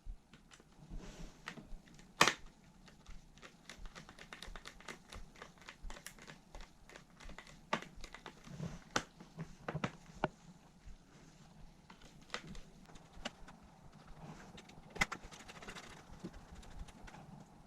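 Irregular light clicks and taps of hands handling a laptop's plastic and metal parts, with one sharper click about two seconds in, over a faint low hum.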